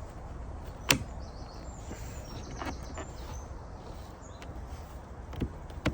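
Plastic C-pillar trim on a Mercedes SLK R172 being pressed into place by hand: one sharp click about a second in, then two softer knocks near the end as it is pushed home and locked in place. Birds chirp faintly in the background.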